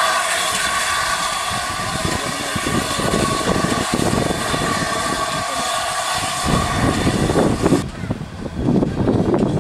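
GWR steam locomotive moving off slowly: a steady hissing drone of steam that cuts off suddenly near the end, with low uneven beats from the engine growing stronger through the second half.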